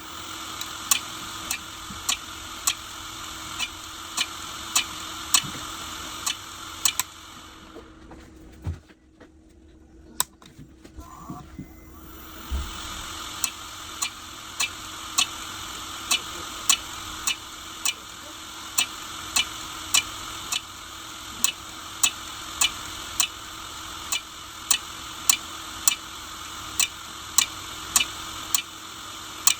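Failing hard disk drive running with its read/write head knocking in a regular click about twice a second, over the drive's steady hiss. This is the clicking of a damaged drive. The clicking and running noise die away for about five seconds, with a single low thump, then build up again and the clicking resumes.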